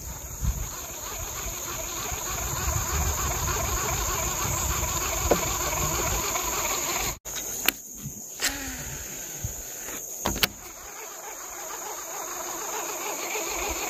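Steady high-pitched insect chorus from the surrounding forest over a low rumble that eases after a brief dropout about seven seconds in, with a few sharp clicks in the second half.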